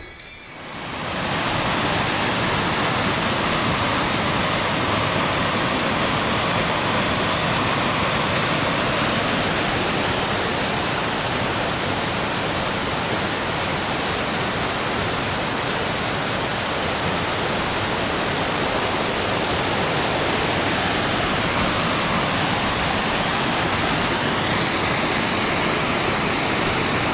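Steady rush of water from a waterfall and brook cascading over rocks, fading in over the first second or two.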